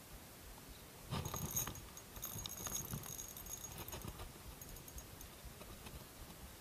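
Close handling noise of fishing tackle and the body-worn camera: rustling and clicking with a faint high whine, starting about a second in and lasting about three seconds, then a few lighter clicks.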